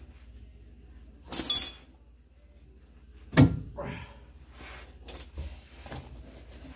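Metal tools clinking and clanking against the truck's underside while working on the upstream oxygen sensor. There is a ringing metallic scrape about a second in and a sharp clank about three and a half seconds in, then a few lighter clicks.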